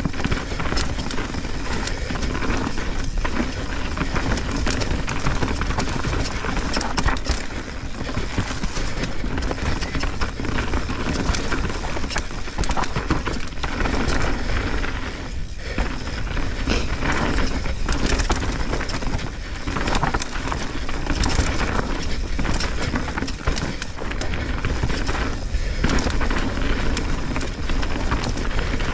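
Mountain bike ridden fast down a rough dirt singletrack: knobby tyres rolling over dirt and roots, with the bike's frame and chain rattling in frequent clatters and knocks over a constant rushing noise.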